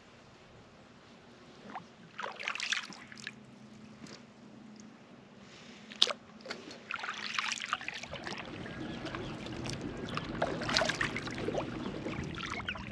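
Kayak paddle strokes from an inflatable tandem kayak, blades dipping and splashing in calm water every few seconds, with one sharp knock about six seconds in. A low steady hum builds up under the strokes in the second half.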